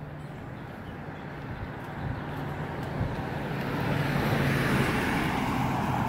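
Pickup truck driving past, its engine and tyre noise building to a peak about four to five seconds in and then starting to fade as it moves away.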